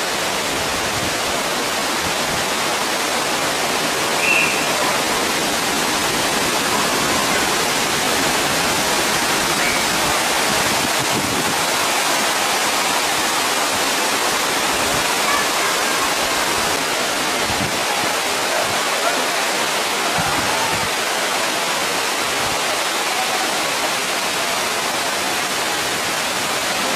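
Steady rush of flowing water from a stream, an even hiss that never lets up, with one short sharper sound about four seconds in.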